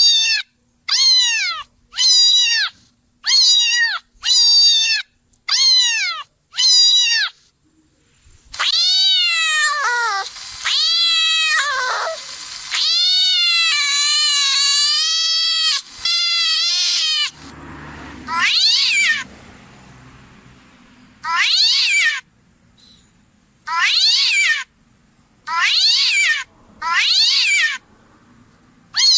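Cat meowing over and over: a run of short, high meows about one a second, then several long, drawn-out meows, then more short meows after a brief pause.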